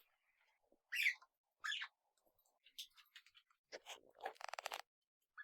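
Small pet parrots calling: two short chirps about a second in, then scattered clicks and a short buzzing rattle about four seconds in.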